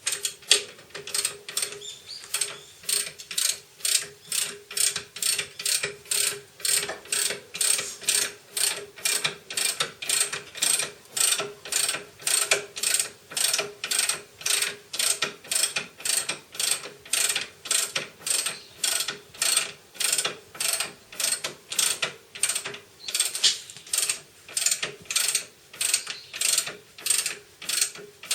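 Hand ratchet wrench clicking in a steady, even rhythm, about two clicks a second.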